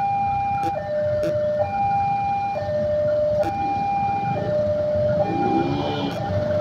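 Railway level crossing warning alarm sounding its two-tone signal, a high and a low note alternating about once a second, which signals an approaching train. Low traffic rumble underneath.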